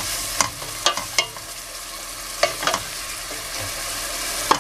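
Onion and garlic sofrito sizzling in oil in a stainless steel pot, with a steady hiss, while a wooden spoon stirs it and clicks and knocks against the pot a few times.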